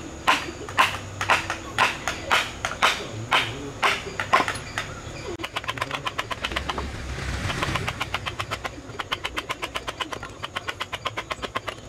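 Wooden mallet striking a wood-handled carving chisel as it cuts into a block of wood: sharp knocks about twice a second, then a faster run of lighter taps, about four or five a second, in the second half.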